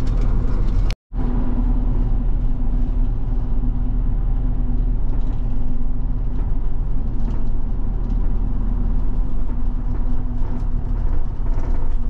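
Bus engine and road noise heard from inside the passenger cabin while the bus is driving: a steady low drone with a hum. The sound cuts out for an instant about a second in.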